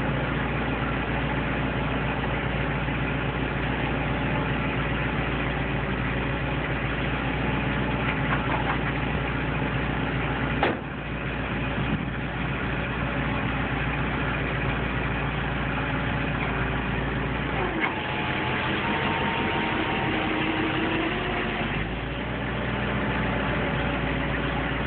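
Tow truck engine running steadily at idle, with a single sharp knock about ten seconds in.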